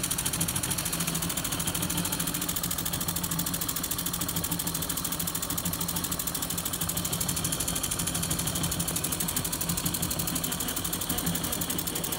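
PM Research No. 3 single-cylinder horizontal model steam engine running steadily on steam with a fast, even mechanical beat, belt-driving a small generator.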